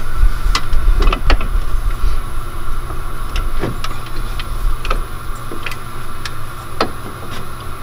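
Scattered light clicks and taps of hand tools against metal as a UTV's front driveshaft is worked loose, over a steady low rumble.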